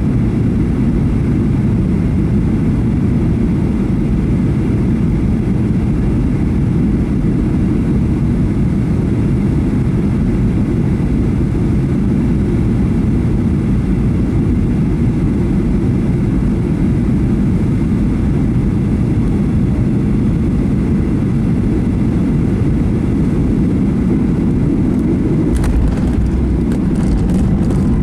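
Cabin noise inside a Boeing 737-800 on final approach: the steady low rumble of its CFM56 engines and airflow. Near the end a cluster of knocks and rattles and a deeper rumble come in as the main wheels touch down on the runway.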